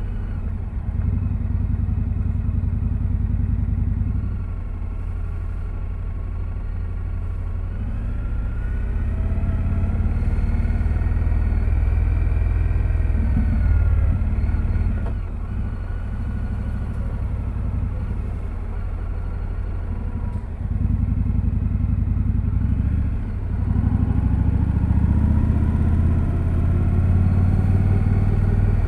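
2025 Indian Scout Sixty Bobber's V-twin running through its stock exhaust while being ridden, a deep rumble whose pitch rises and falls with the throttle. It eases off for a few seconds near the start and briefly several times later, then pulls again.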